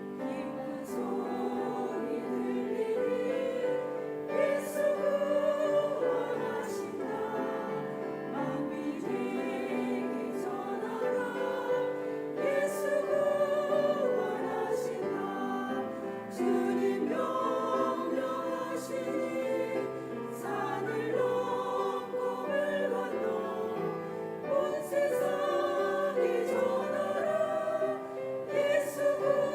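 A choir singing a sacred song in sustained phrases with vibrato, with piano accompaniment.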